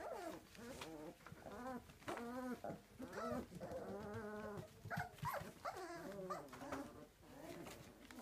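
Four-week-old puppies whining and whimpering: a string of short, wavering cries, one after another.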